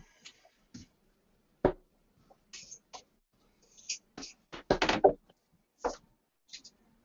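A few short, sharp knocks and taps of steel-tip darts thudding into a bristle dartboard, with a quick cluster of them about two-thirds of the way through.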